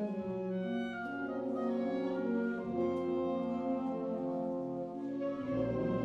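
Concert wind band playing held chords, clarinets and brass together, the notes changing every second or so; low brass notes come in near the end.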